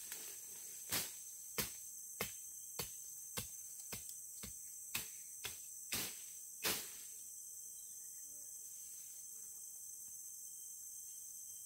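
Steady, high-pitched insect chorus of crickets. Over it comes a run of about ten sharp knocks, roughly one every half second, which stop about seven seconds in.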